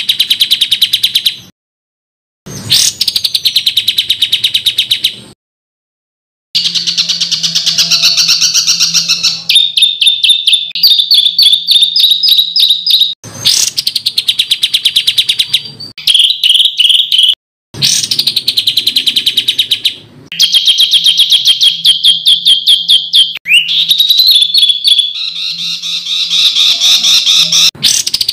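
Songbird song from a masteran tutor recording: loud, harsh, rapid strings of repeated high notes and trills. It comes as spliced clips that cut off abruptly, with a few short silences between them.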